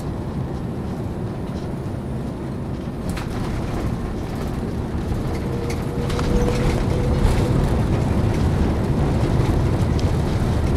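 Airliner cabin noise during the landing roll: a steady low rumble of engines and wheels on the runway, getting louder from about six seconds in.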